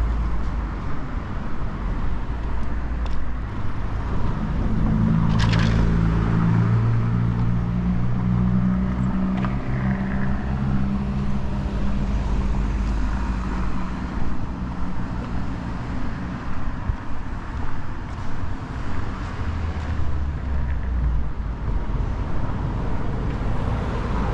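City street traffic: a car engine hums close by, strongest from about four seconds in until about sixteen seconds, over a continuous low traffic rumble, with a brief sharp hiss about five seconds in.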